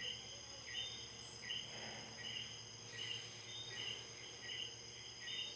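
Insects chirping: a short chirp repeating about every two-thirds of a second over a faint, steady high-pitched whine.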